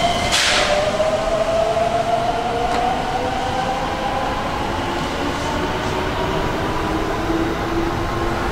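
Electric commuter train accelerating, its traction motors giving a steadily rising whine over the rumble of the wheels. A short burst of hiss comes about half a second in.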